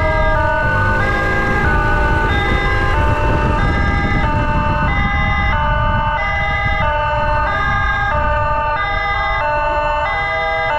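Emergency vehicle siren sounding a stepped hi-lo pattern, switching pitch about twice a second, over the low rumble of motorcycle engine and wind noise on the move.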